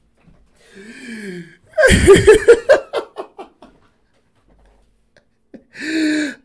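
A man laughing out loud: a short voiced sound about a second in, then a loud burst of rapid laughter that trails off, and a drawn-out vocal sound near the end.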